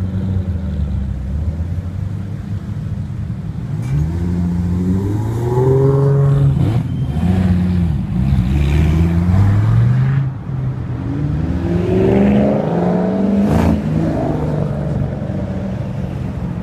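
Dodge Viper's V10 engine idling close by, then revved several times, the pitch rising and falling with each rev.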